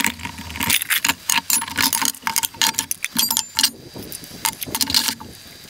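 Aluminium Trangia camp-stove pots and parts clattering and clinking as the nested kit is taken apart and set out: a quick, uneven run of metal knocks, each with a short ring, stopping about five seconds in.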